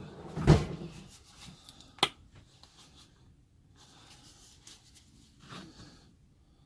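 Handling sounds on a workbench as a glue bottle and plywood pieces are picked up and set down. A loud thump about half a second in and a sharp click about two seconds in are followed by quieter rustling.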